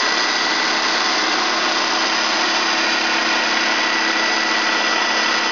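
Spindle of a 5-inch Giddings & Lewis CNC horizontal boring mill running steadily at 2200 RPM: an even machine whir with a constant high tone.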